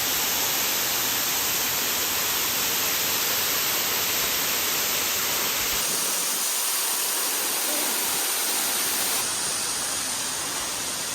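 Waterfall pouring into a pool: a steady, even rush of falling water, its lowest rumble thinning out about six seconds in.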